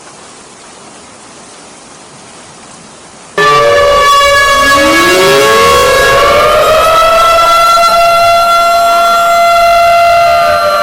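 Steady rain that cuts off abruptly a little over three seconds in, replaced by loud tornado warning sirens winding up. Several pitches rise together over about two seconds and then hold as overlapping steady wails.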